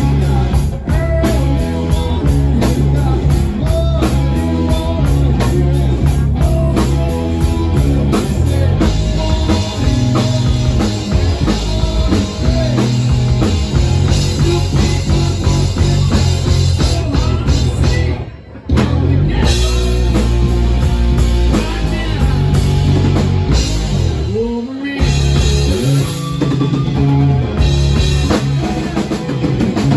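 A live rock band playing electric guitar and drum kit at full volume. It stops for an instant a little past halfway, then comes straight back in.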